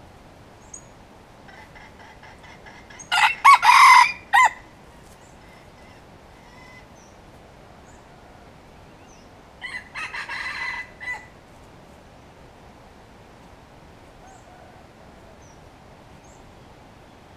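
Wild red junglefowl rooster crowing twice: a loud, short crow about three seconds in, then a fainter crow around ten seconds in.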